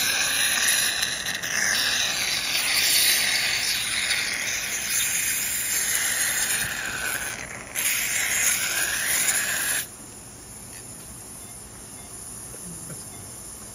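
Surgical suction drawing pericardial fluid through a multi-holed suction tube: a loud steady hiss that drops suddenly to a faint hiss about ten seconds in.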